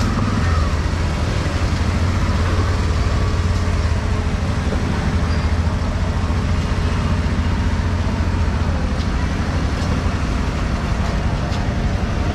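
Steady street-traffic noise: a continuous low rumble of passing vehicles.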